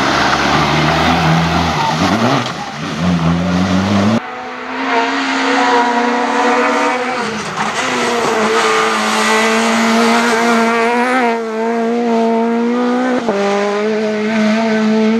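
Rally cars at full throttle on a wet tarmac stage: a Škoda Fabia rally car with its engine pitch rising, then, after an abrupt cut about four seconds in, a Peugeot 208 rally car revving high and steady, with brief drops in pitch at its gear changes.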